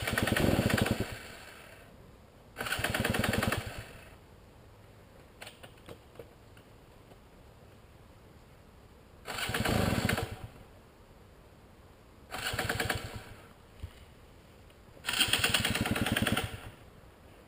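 Dirt bike engine being restarted five times, each time firing for a second or so and then dying out again. The riders first take it for running out of gas, but the tank is full, and they suspect a fouled spark plug.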